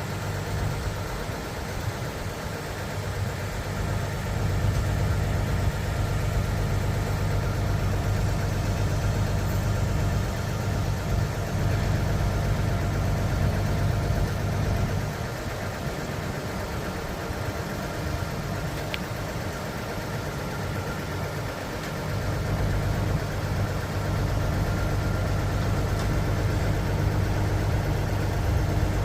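Diesel engine of a 2014 Junjin 45 m concrete pump truck running, getting louder about four seconds in, easing back for several seconds past the middle, then louder again.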